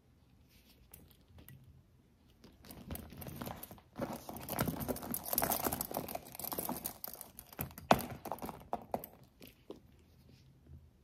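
Handling noise from a Coach signature-canvas satchel and small wallet being moved and turned in the hands: rustling and crinkling with many small clicks, starting a few seconds in. A sharp click just before eight seconds in is the loudest moment.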